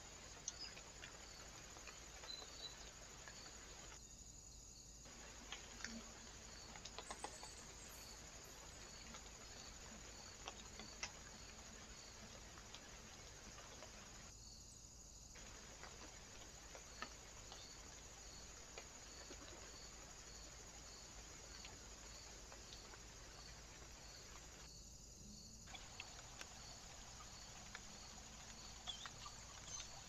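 Near silence: steady trail-camera microphone hiss with scattered faint clicks as small birds peck seed and land at the feeders, and a faint high tick repeating every half second or so.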